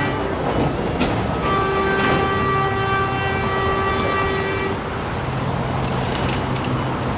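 Train horn sounding in blasts, the last one held about three seconds and stopping about two-thirds of the way through. It is followed by the low steady drone of an approaching diesel freight locomotive.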